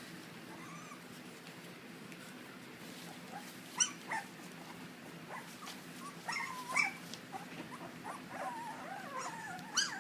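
Lagotto Romagnolo dogs whimpering and yelping: a few short, high yelps about four seconds in and again past the middle, then a run of whines that slide up and down in pitch near the end.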